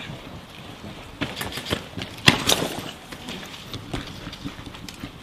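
Scattered sharp clicks and knocks of an airsoft skirmish, with a cluster from about one to three seconds in and the loudest a little past two seconds.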